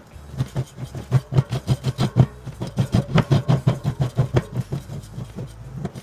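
Brass threaded fitting being screwed by hand into a fire-extinguisher tank, the metal threads grating in quick repeated strokes, several a second, that stop near the end.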